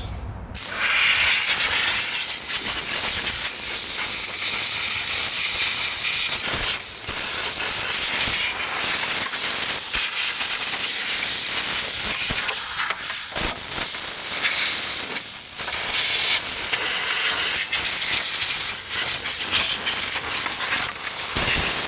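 A jet of compressed air hissing steadily as dirt is blown off the steering-column combination switch, starting about half a second in, with a few brief breaks.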